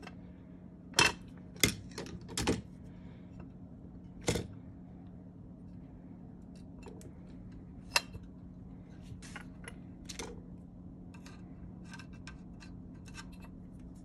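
Small metal clicks and clinks of parts being handled on an aluminium Autolite 2100 carburetor while fitting a small linkage clip: several sharp clinks in the first few seconds and one about eight seconds in, then lighter ticking. A steady low hum runs underneath.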